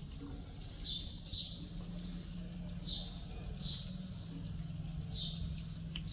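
A bird calling over and over: short, high chirps, each sliding down in pitch, more than one a second, over a steady low background rumble.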